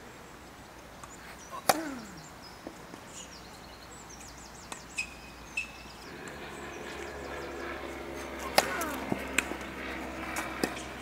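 Tennis balls struck hard by rackets, two sharp hits a little under two seconds and about eight and a half seconds in, with softer knocks of bounces and further hits between and after. Birds chirp in short runs, and from about six seconds a steady hum joins.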